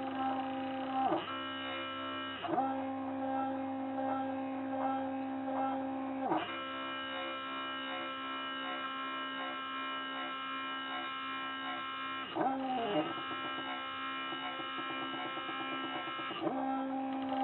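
DIY wooden-frame GRBL CNC mini router running: a steady, pitched motor whine whose tone shifts, with a brief dip in pitch, each time the machine changes to a new move, five times in all.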